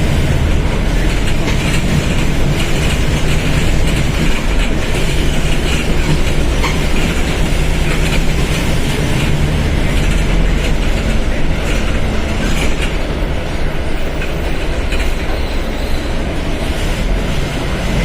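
Mercedes-Benz OF1721 BlueTec 5 bus's diesel engine running steadily under way, with road noise and light rattling clicks from the bus body.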